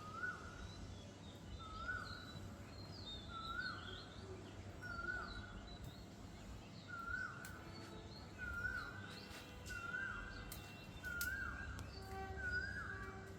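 A bird repeating one short call note over and over, about once every second and a half, coming faster near the end, with fainter, higher chirps from other birds.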